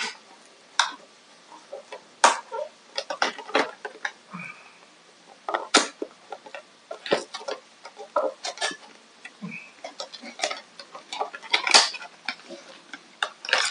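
Irregular clicks, taps and light knocks from hands handling a boxed 3.5 mm auxiliary cable and its packaging, with a couple of brief faint squeaks.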